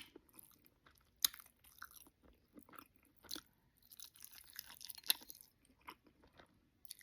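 Close-miked mouth sounds of a person chewing a mouthful of oxtails, rice and cabbage: soft, scattered wet smacks and clicks, with a few sharper ones about a second, three seconds and five seconds in.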